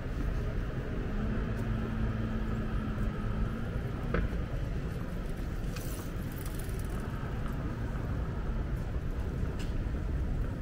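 City street traffic: a car's engine running close by over a steady low rumble of traffic, with a sharp click about four seconds in and a short hiss near six seconds.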